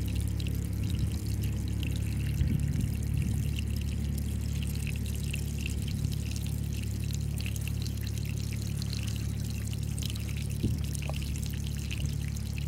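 Water pouring steadily out of the opened outflow valve of a gravity siphon, a 3/4-inch black plastic pipe drawing from a pond, as the siphon establishes a good flow.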